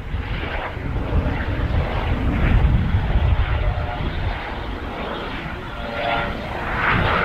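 Airbus H135 helicopter in flight: steady rotor and turbine noise with a deep rumble, swelling a little about three seconds in.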